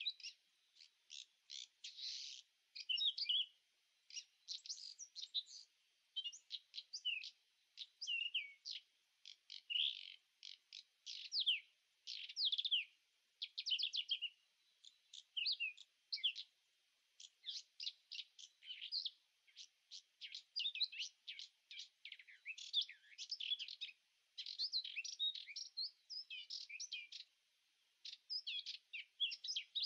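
Small birds chirping: a busy, unbroken run of short, high, quick calls and trills with brief pauses.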